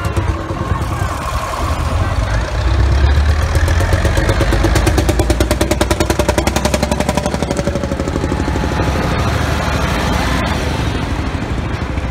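Vintage tractor engines running as a line of tractors drives slowly past. The loudest is an orange Field Marshall single-cylinder two-stroke diesel with a rapid, even beat, which swells about a third of the way in and slowly fades.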